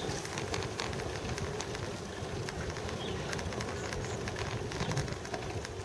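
Bicycle rolling along a paved cycle track: steady rolling and wind noise, with frequent small clicks and rattles from the bike.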